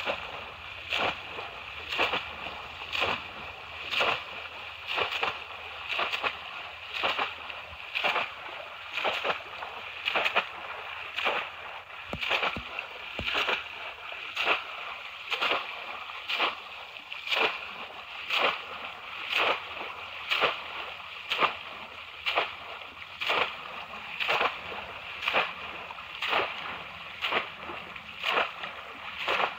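Bamboo polo fish traps slapped down into shallow pond water over and over, a sharp splash about twice a second as two traps are plunged in turn.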